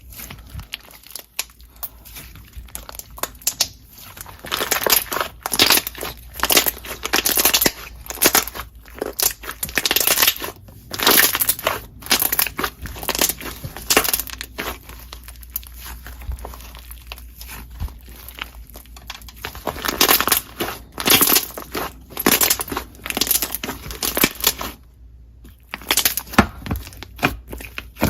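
Green slime being squeezed, pressed and stretched by hand, giving rapid crunchy crackling and popping in bursts of a few seconds with short pauses between.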